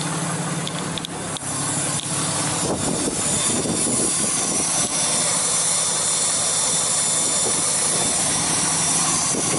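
Cummins turbo-diesel idling with the exhaust brake engaged ('jet mode'): a loud, steady whooshing hiss from the 5-inch exhaust tip over the low idle hum, growing fuller a few seconds in.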